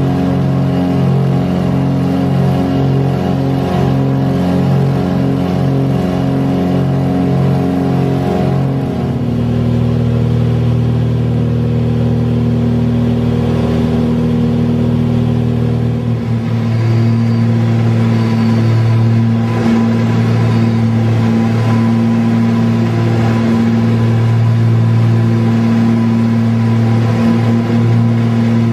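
Steady in-cabin drone of a Britten-Norman Trislander's piston engines and propellers, pulsing with a regular beat for the first several seconds. The tone shifts about nine seconds in and again around sixteen seconds in, then runs on evenly.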